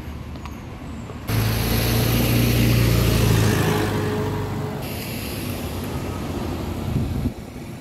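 A pickup truck driving past close by, its engine running with a steady low hum. It comes in abruptly about a second in, is loudest for the next two seconds, then eases off and cuts out near the end.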